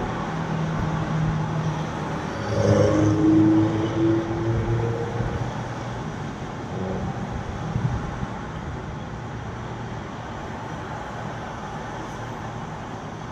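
Road traffic passing. One vehicle goes by close and louder from about two and a half to five seconds in.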